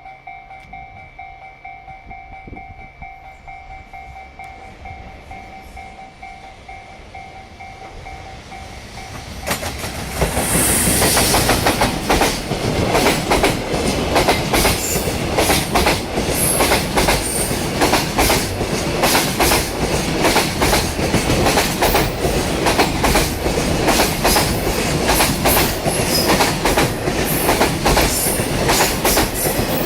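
A level crossing warning signal sounds steadily, then about ten seconds in a JR Freight EF210 electric locomotive and its long train of container wagons arrive and pass, the wheels pounding loudly over the rail joints in a rapid, continuing clickety-clack.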